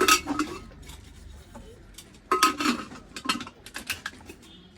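Metal cookware clanking: two sharp metal strikes with a short ring, about two seconds apart, followed by a quick run of lighter clinks.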